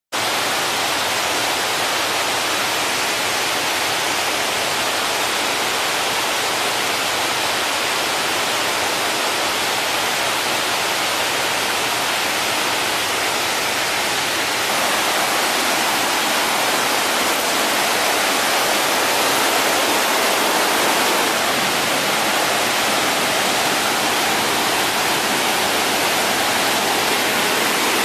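Muddy, swollen flash-flood water pouring down a rocky waterfall and rushing over boulders: a steady, dense rush of water, a little louder about halfway through.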